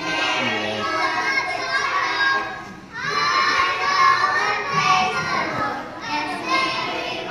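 A group of young children singing together with many voices at once, in phrases that break off briefly about three seconds and about six seconds in.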